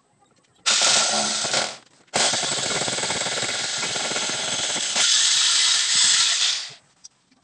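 Corded electric drill boring into the wall at the window frame with a fast hammering rattle, in two runs: a short one of about a second, then a longer one of about four and a half seconds.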